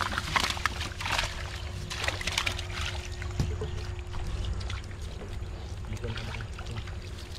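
Water splashing and sloshing in irregular bursts, busiest in the first few seconds and again near the end, over a steady low hum.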